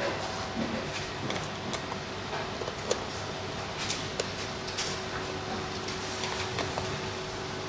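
Scattered light clicks and ticks, like small parts and tools being handled, over a steady low hum.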